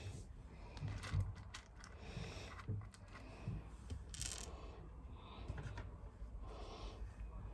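Small plastic fuse beads clicking and tapping as they are picked up and pressed one by one onto a plastic pegboard: faint, light clicks at an irregular pace.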